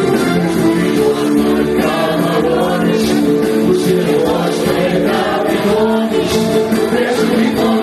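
Male singer singing a Greek popular song into a microphone, accompanied by an electronic keyboard, played live through a PA.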